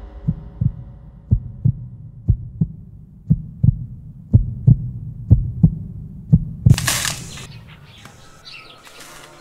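Heartbeat sound effect: seven double lub-dub thumps, about one a second. It is cut off about seven seconds in by a sudden loud rush of noise, and faint bird chirps follow.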